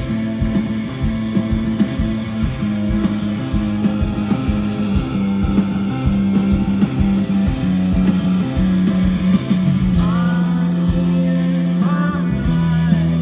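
Live rock band playing: electric guitar and drums over a strong, sustained bass line, with a voice singing in from about ten seconds in.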